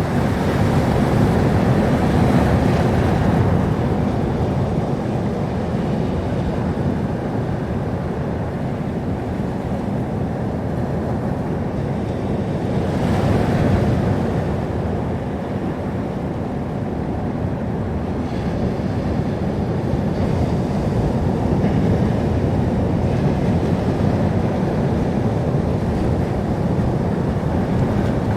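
Sea surf: waves washing onto the shore in a steady rush, swelling as a wave breaks about two seconds in and again around the middle.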